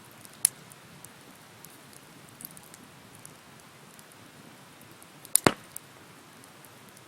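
Bonfire burning with a soft steady hiss and sparse crackles. There is a sharp pop about half a second in and a louder double crack about five and a half seconds in.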